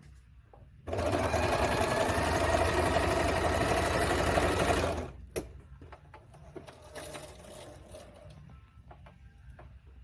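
Singer 2282 Tradition household sewing machine, freshly greased and oiled, running fast as it stitches a small piece for about four seconds, then stopping suddenly. A few light clicks follow.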